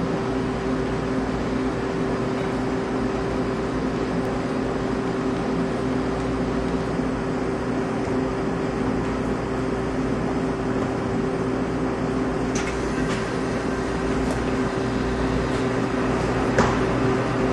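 Steady droning hum throughout, with a few light knocks in the last few seconds.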